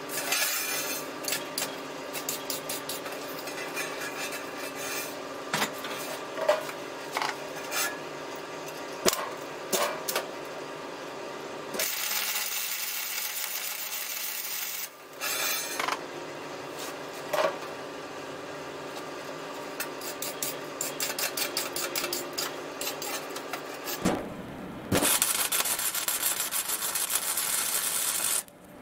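MIG welding arc crackling and sizzling in two runs of a few seconds each, about 12 seconds in and again about 25 seconds in, as a coupling nut is welded onto threaded rod. Between the runs there is a steady hum with scattered clicks.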